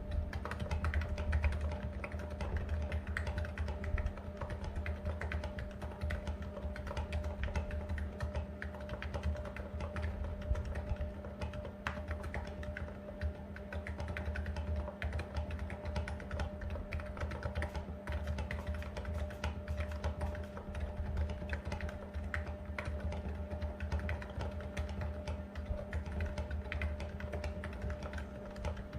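Continuous typing on a Niz Plum 68 electro-capacitive keyboard with China Ink keycaps: a dense, unbroken stream of key strokes over a steady low hum.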